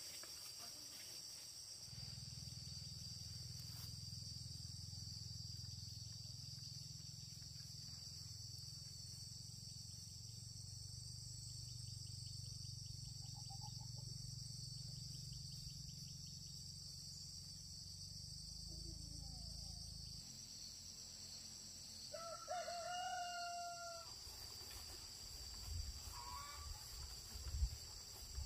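A rooster crows once, a call about two seconds long some twenty-two seconds in, over a steady high drone of insects. A few sharp knocks come near the end.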